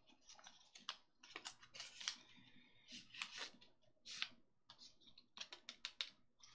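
Faint, irregular clicks and crinkly rustles of small model-kit parts and their plastic parts packet being handled.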